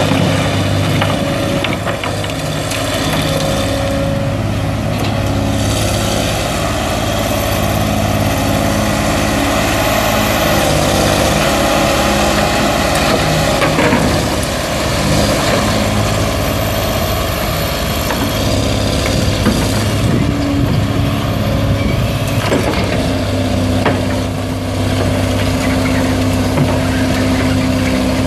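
John Deere 690B excavator's six-cylinder turbo diesel engine running steadily under working load as the machine digs and swings its bucket, the engine note shifting a little as the hydraulics take load.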